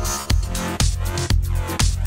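Electronic dance music with a steady beat, about two beats a second, over a heavy bass line.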